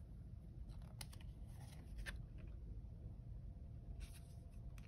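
Faint handling of thick cardstock cards: a few light clicks and soft rustles as the cards are moved and slid over one another.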